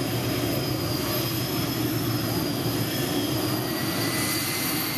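Multi-engine modified pulling tractor running flat out under load as it pulls the sled, with a steady high whine over the engine noise and a second whine rising gently from about four seconds in.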